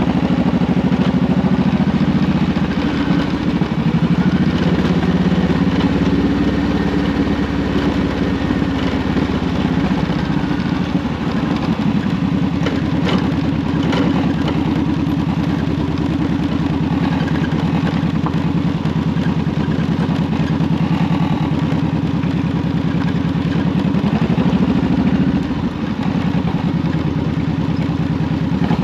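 Honda VTX 1800's big V-twin engine running steadily at low road speed. The revs rise briefly and then drop near the end. A few sharp knocks come about halfway through.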